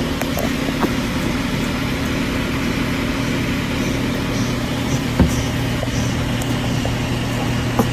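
A steady mechanical hum with a loud rushing noise, with a few faint clicks and a sharper knock a little after five seconds in.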